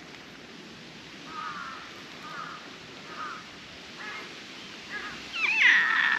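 Orange long-haired cat calling while being petted: a few short, soft calls about once a second, then a louder, longer meow near the end.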